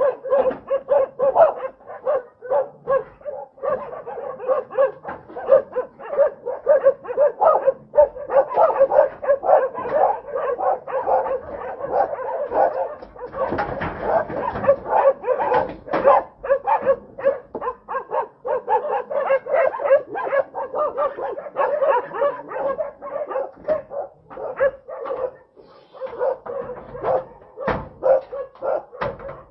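Dog barking over and over, about three barks a second, without a break.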